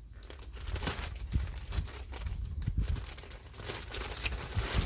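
Freshly gathered moss being pushed and spread out by hand over a floor: an irregular crackling and rustling with a few soft low thumps.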